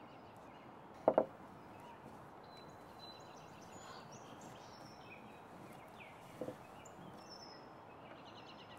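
Quiet outdoor ambience with small birds chirping, broken by a quick double knock about a second in and a fainter one past six seconds: a pebble and hands tapping on a wooden picnic table.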